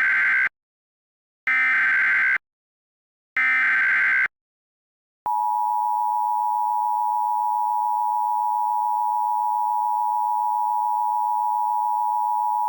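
Emergency Alert System alert: the last of three short, buzzy digital header bursts about two seconds apart, then, about five seconds in, the steady two-tone attention signal, two close pitches just under 1 kHz sounded together.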